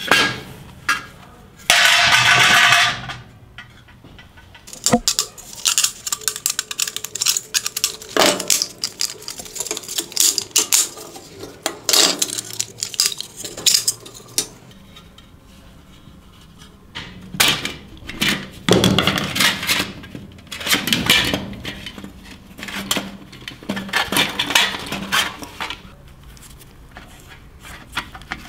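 Small metal parts and hand tools clinking and clattering as an old metal model airplane is taken apart: irregular clicks and knocks, with a denser rattling scrape about two seconds in.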